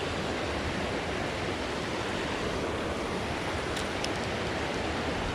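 Steady rush of river water running over rocks into a pool below small falls, with a couple of faint ticks about four seconds in.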